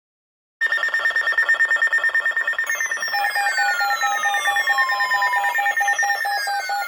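Weather alert radios sounding their alarms together, starting abruptly about half a second in. A steady, rapidly pulsing high tone is joined by falling sweeps repeating about every three seconds and, from about three seconds in, a lower tone beeping about four times a second, signalling an incoming weather alert.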